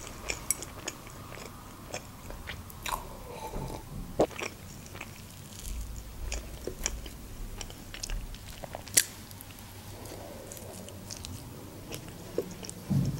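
Close-up chewing and mouth sounds of a person eating soft chocolate cream cake, with scattered small clicks and a few sharper snaps.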